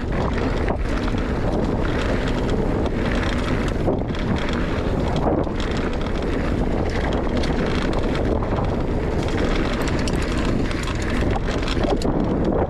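Wind buffeting the microphone of a mountain bike rolling fast downhill, with steady tyre rumble from the dirt trail and short clicks and rattles from the bike.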